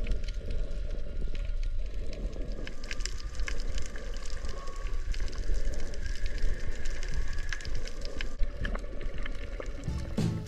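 Underwater sound picked up by a camera held below the surface: a low, muffled rush of water with many small crackling clicks throughout.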